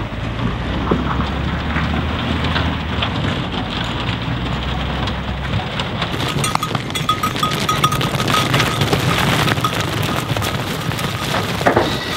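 Livestock truck's diesel engine rumbling low as it drives away, the rumble dropping out about halfway through; after that, a dense crackling and clicking.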